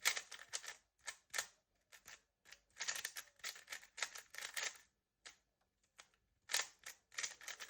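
Rubik's cube being turned at speed during a timed solve: quick plastic clicks and clacks, in fast runs with short pauses between them.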